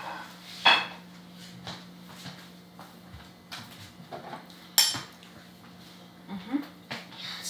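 Cutlery clinking and scraping on plates while eating, a few sharp clinks with the loudest about five seconds in, over a faint steady hum.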